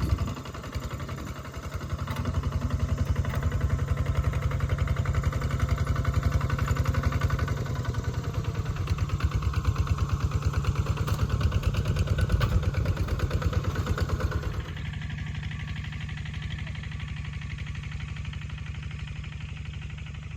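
A small engine running with a steady rapid pulse; it drops in level about fifteen seconds in and keeps running more quietly.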